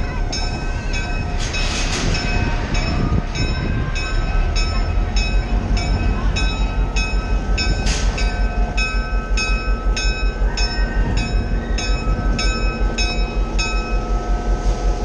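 EMD CF7 diesel locomotive rolling slowly close by, its engine running with a low rumble. A bell rings steadily over it, about two strikes a second.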